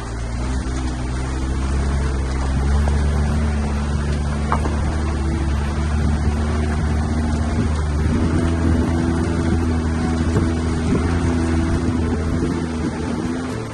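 Jeep Gladiator's engine pulling under load up a steep off-road uphill, a steady low drone that grows a little louder about two seconds in, with a few faint knocks.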